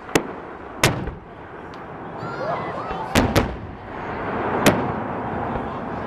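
Aerial fireworks shells bursting: five sharp bangs, two of them close together in the middle, over a continuous crackling hiss.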